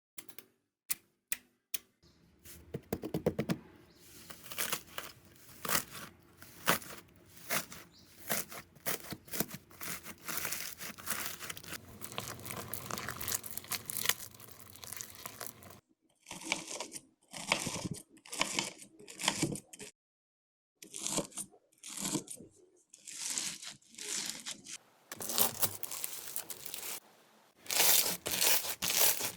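Slime worked by hand, with dense crackling clicks and pops as it is pressed and stretched. In the second half the crackling comes in separate bursts, with a brief silence in between.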